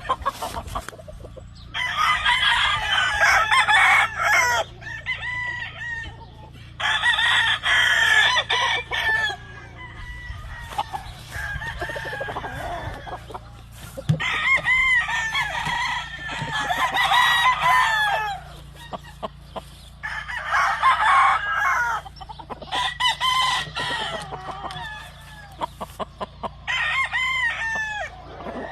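Gamefowl roosters crowing again and again, about six loud crows a few seconds apart, some overlapping, with softer clucking between them.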